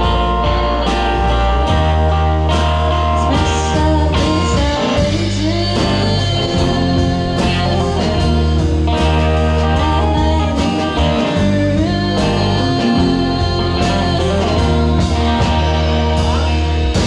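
Rock band playing a bluesy number: electric guitar over bass guitar and a drum kit, loud and steady.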